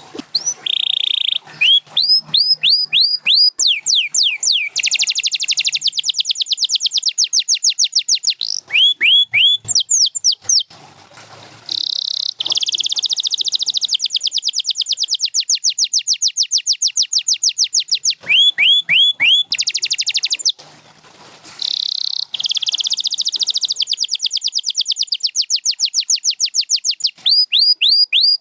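Canary singing: a long song of rapidly repeated high sweeping notes and fast rolling trills, each phrase a string of identical notes, with short pauses about 11 and 21 seconds in.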